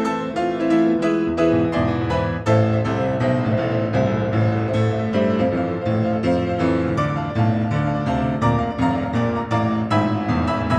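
Solo piano playing an improvised passage in A minor: a dense flow of quick notes and chords over a sustained bass line, without a break.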